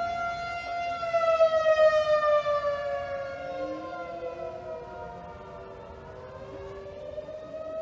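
Outdoor tornado warning sirens wailing to signal a tornado warning. The main siren's tone swells loudest about a second in, slides slowly down over several seconds and begins to climb again near the end. A second, lower-pitched siren rises and falls beneath it.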